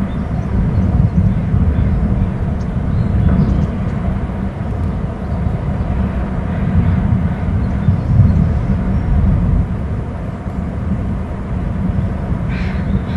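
Loud, low, fluctuating rumble of wind buffeting an outdoor microphone, with a short higher-pitched sound near the end.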